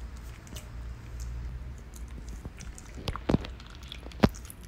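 Red silicone spatula stirring a runny white slime mixture in a glass bowl: wet squishing with a run of small clicks, and two sharper clicks a little after three and four seconds in.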